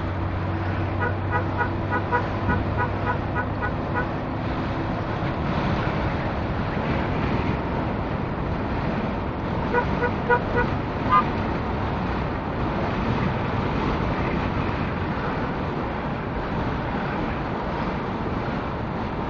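Steady engine and road noise from a Land Rover convoy on the move, with car horns tooting in rapid short beeps, in one spell about a second to four seconds in and another around ten to eleven seconds.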